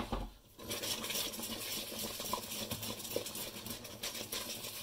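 Wooden spoon stirring a white sauce in a stainless steel saucepan, scraping round the pan in a steady scratchy rustle. A soft low bump comes at the very start.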